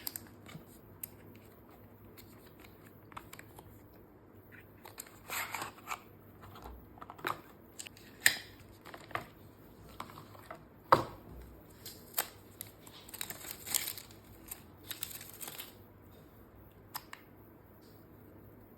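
Unboxing handling noises: scattered sharp clicks and taps with short bursts of rustling and crinkling packaging, the loudest clicks about eight and eleven seconds in.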